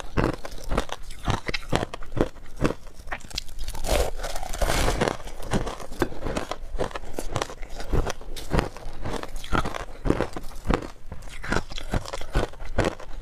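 Crunching and chewing of packed shaved ice coated in passion fruit pulp, a dense run of crisp bites and crunches.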